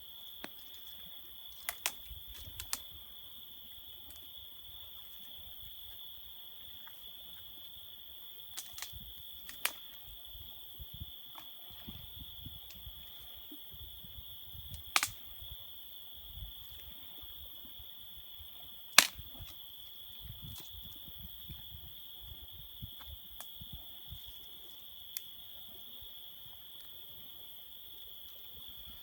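Campfire crackling with scattered sharp pops, two of them much louder than the rest, over the steady high trill of crickets.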